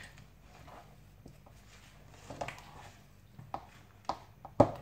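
Wooden spoon working thick barley porridge (genfo) in a metal pot: quiet scraping with a few sharp knocks of the spoon against the pot, the loudest shortly before the end.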